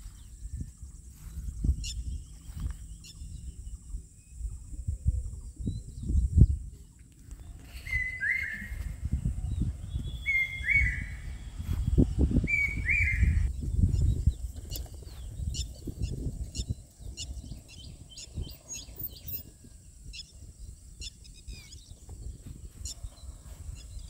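Low rumbling with thumps throughout. In the middle a bird gives three short calls, each dropping in pitch, and faint short chirps follow later, over a steady high hiss.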